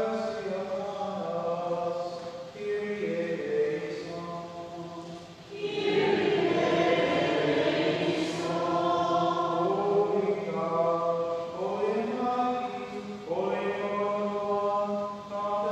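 Voices singing a slow, chant-like sung prayer or hymn of the Mass, with long held notes. The singing grows fuller and louder about six seconds in.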